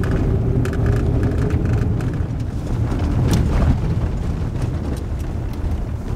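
Toyota RAV4 driving on a gravel and dirt road, heard from inside the cabin: a steady low rumble of tyres and engine with scattered ticks and knocks.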